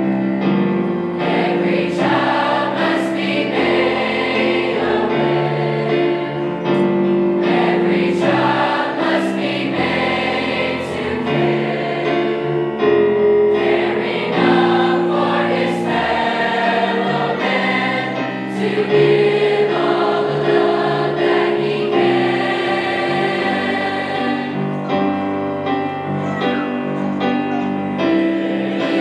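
A choir singing a Christmas song, with sustained chords that change every second or two.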